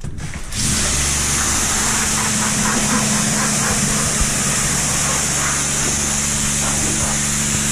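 Car-wash pressure washer switching on about half a second in and then running steadily: an even hum from the pump motor under the loud hiss of the water jet.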